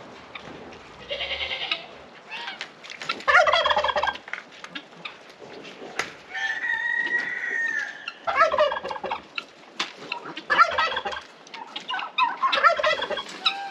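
Turkeys gobbling, a loud burst every couple of seconds, mixed with other poultry calls, one of them a longer steady call about six seconds in.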